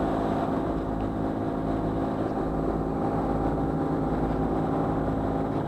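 Catalina 32 sailboat's inboard diesel engine running at a steady speed while motoring, with an even hum throughout.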